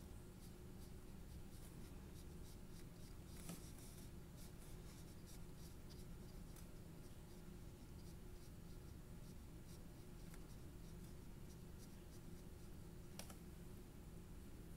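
Faint strokes of a paintbrush on paper, light scratchy brushing with a couple of small clicks, over a low steady hum.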